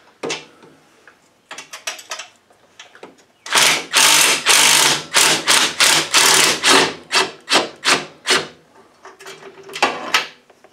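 Cordless drill driving a socket on a swivel joint to back out engine-mount bolts. A few light clicks, then from about a third of the way in a run of short loud spins lasting some five seconds, and one more short spin near the end.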